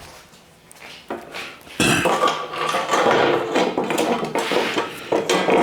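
Irregular metallic clattering and knocking as tools and a steel workpiece are handled and set up for drilling, starting about two seconds in.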